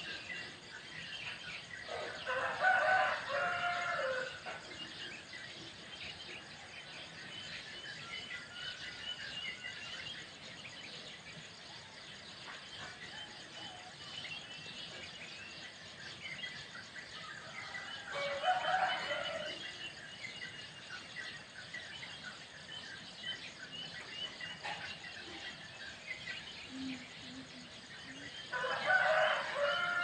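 Rooster crowing three times, each crow about two seconds long: a couple of seconds in, around the middle, and at the very end. Underneath runs a steady high chirping of small birds and insects.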